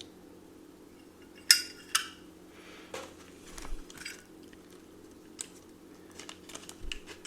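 Metal clinks and light handling of a Zippo lighter's steel case and insert: two ringing clinks about half a second apart, then a click, a soft rustle and a scatter of small ticks.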